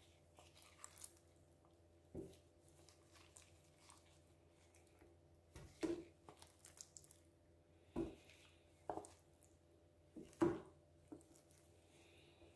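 Mustard-coated raw chicken pieces being laid by hand into an oiled enamel roasting pan: about five soft, wet thuds and squishes, spaced a second or two apart.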